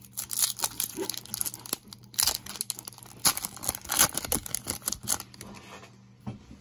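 Trading-card pack wrapper being torn open and crinkled by hand: a run of sharp crackles and rustles that thins out near the end.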